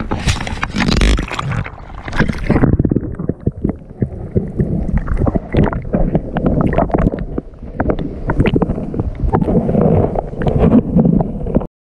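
Water splashing as a fish is lowered over a boat's side into the sea, giving way after about two and a half seconds to muffled underwater sloshing and gurgling with many short knocks, heard on a camera dunked below the surface. It cuts off suddenly near the end.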